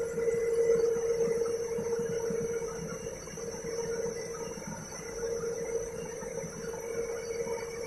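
IFB Elina washing machine motor running with a steady hum that swells and fades in strength; the owner puts the noise down to a failing motor bearing.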